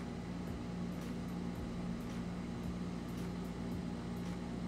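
Steady low machine hum with a faint hiss, even throughout.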